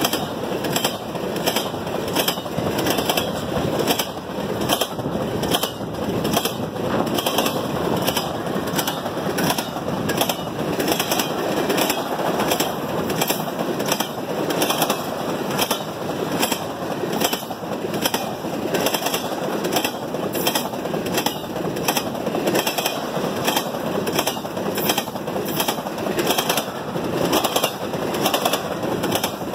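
Empty intermodal well cars of a freight train rolling past: a steady rumble of steel wheels on the rails, with a run of sharp clicks and clanks, several a second, from the wheels and the loose, empty cars.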